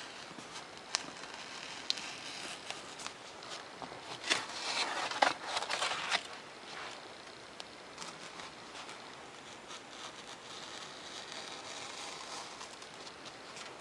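Hobby knife blade scratching through paper plans and thin Depron foam sheet: a couple of sharp ticks, then a louder scratchy, crackly stretch about four to six seconds in.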